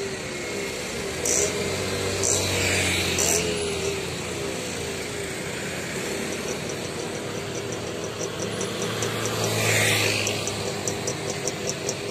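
Road traffic: engines of cars, trucks and motorcycles running steadily close by. One vehicle passes close about two to three seconds in and a louder one around ten seconds in. A rapid, high ticking comes in over the last few seconds.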